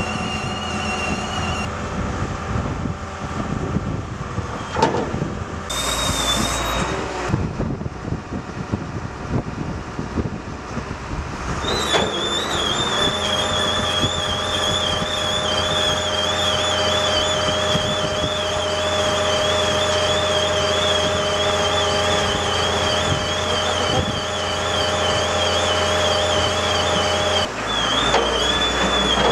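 Pile-driving rig running with a steady engine hum. From about twelve seconds in, a high, wavering squeal rides over it and stops shortly before the end.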